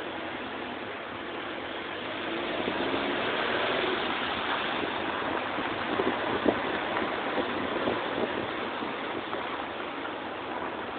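A car driving through a car park, its engine running under a steady rush of air and road noise, picked up by a phone held out of the car's window. There are a few light knocks about six to eight seconds in.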